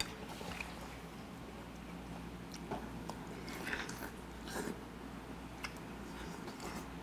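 A person eating a spoonful of siraegi-guk (radish-greens soup) and chewing: soft, irregular mouth and chewing sounds with a few short clicks spread through.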